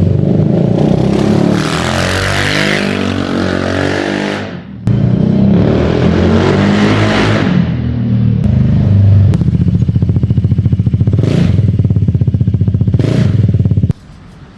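QJmotor Fortress 350 scooter's engine running through an aftermarket Naughty Boy exhaust, revving up and down, then settling into a steady pulsing idle; there is a sudden break about five seconds in, and the sound drops off sharply shortly before the end.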